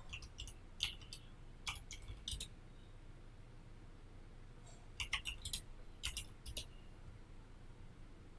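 Computer keyboard and mouse clicking in two short irregular clusters, the second starting about five seconds in.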